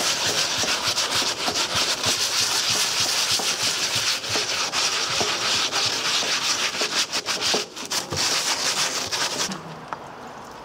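Wet-and-dry sandpaper rubbed by hand in quick back-and-forth strokes over the surface-rusted steel lid of a 1957 British Army ammo box, the paper wetted with water. The sanding stops near the end.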